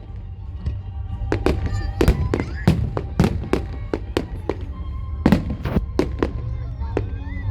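Fireworks going off in a rapid, uneven series of sharp bangs, about twenty in all, with a lull around the fifth second. Music plays behind them over a steady low rumble.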